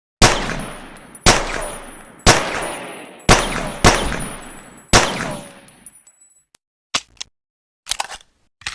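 Pocket pistol firing six shots, roughly a second apart with two closer together, each ringing off in a short echoing tail. A few small sharp clicks follow near the end.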